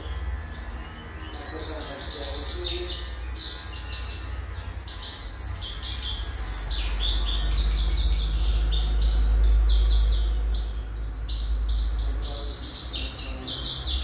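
Caged canary singing a long, continuous song of fast, high trills and rolling phrases, starting about a second in, over a steady low rumble.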